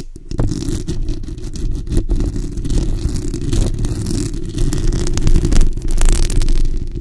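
Long acrylic fingernails and fingertips scratching and rubbing directly on a condenser microphone's bare metal mesh grille. The result is a dense, continuous scratchy rustle over a heavy low rumble, with many quick scrapes and taps.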